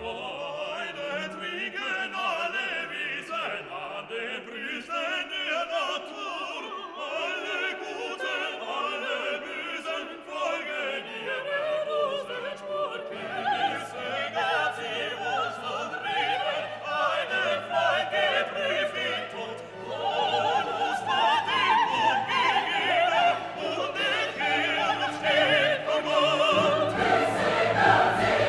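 Background music: a classical orchestral piece with operatic choral singing.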